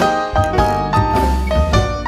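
Instrumental background music with a jazzy feel: piano chords over a steady bass line.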